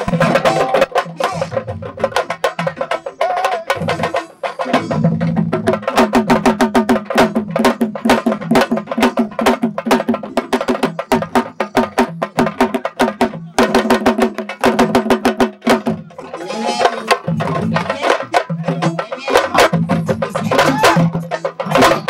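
Sabar drums played fast, with dense sharp slaps and strikes, and voices over the drumming.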